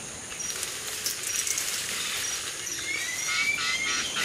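Tropical forest ambience: a steady hiss of insects with a short high note repeating about every half-second, and a few rising bird chirps in the second half.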